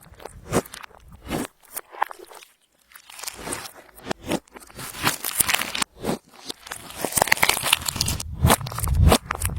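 Clear slime being squished and worked by hand, giving irregular sticky crackles and pops. They pause briefly about two seconds in, then grow busier and louder over the last few seconds.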